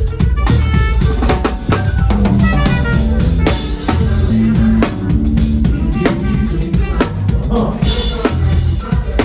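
Music led by a drum kit, with repeated snare, kick drum and rimshot hits over a heavy bass line and short melodic lines from a pitched instrument.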